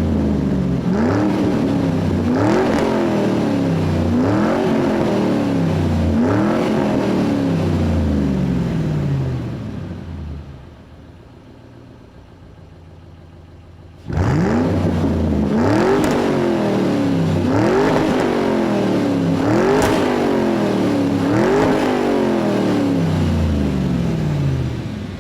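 Car engine revved hard over and over, each rev rising quickly and falling away slowly: about five revs, a short lull, then about five more.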